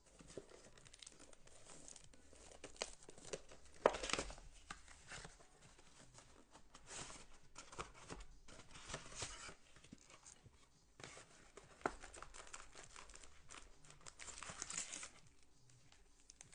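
Plastic shrink wrap being torn and crumpled off a trading-card box, then the cardboard box flaps opened and the card packs handled. Crinkling and tearing go on throughout, with the sharpest rip about four seconds in.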